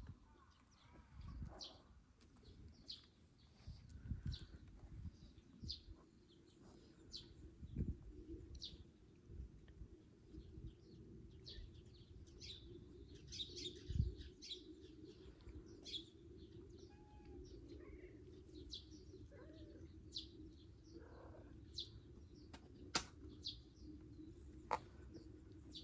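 Small birds chirping outdoors: short, high, scattered chirps all through, over a few low thumps on the microphone and a faint steady hum that comes in about ten seconds in.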